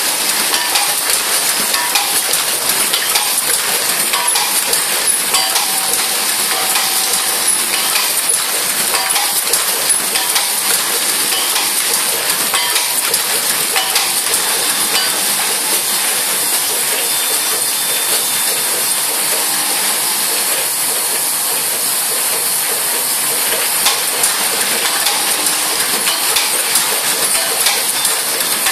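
LTPT-40A effervescent tablet tube filling machine running: a steady hiss with continual light clinking and clicking throughout.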